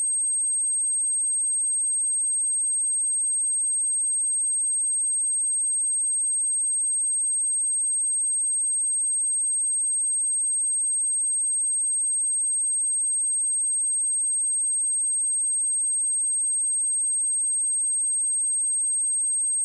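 A single steady high-pitched 8405 Hz sine-wave test tone, held at one pitch and level without a break, played to test a speaker and shake water and dust out of it.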